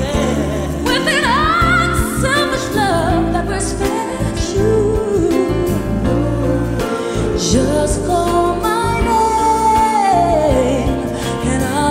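A song: a sung melody over instrumental backing, with a long held note that slides down near the end.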